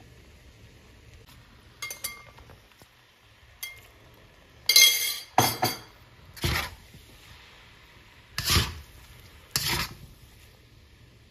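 Metal spatula scraping and clinking against a wok as it turns over stir-fried glutinous rice. The strokes come one at a time, a second or two apart: a couple of light ones early, then louder ones, the loudest a quick cluster about five seconds in.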